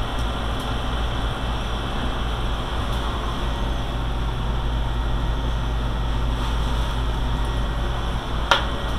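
Steady hum and whir of a fan running without a break, with one sharp click near the end.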